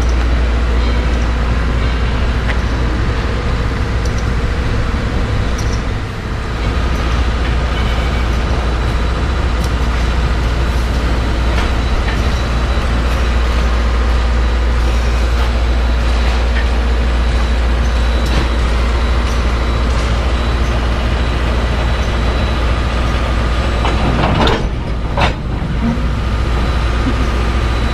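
Steam locomotive No. 630 backing its tender slowly up to a passenger car, with a steady rumble and hiss from the engine. Near the end come two sharp knocks close together as the couplers meet.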